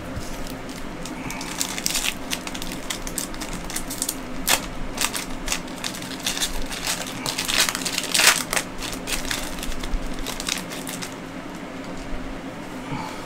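Foil wrapper of a trading-card pack crinkling and crackling as it is torn open by hand, in irregular bursts from about a second and a half in until shortly before the end.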